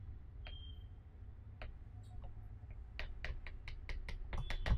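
Chalk tapping on a blackboard as short strokes are drawn: a few single ticks, then a quick run of sharp taps, about four to five a second, over the last couple of seconds. A steady low hum runs underneath.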